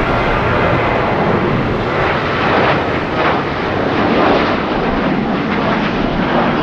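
Aircraft engine running steadily, a loud, even wash of engine noise without change in pitch.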